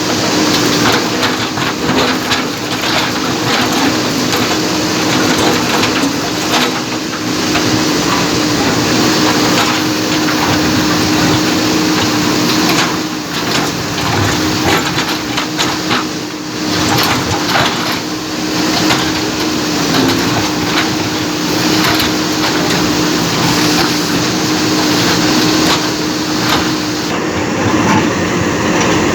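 JCB backhoe loader's diesel engine running steadily while the bucket breaks up a bridge, with irregular crunching and knocking of broken concrete and masonry throughout.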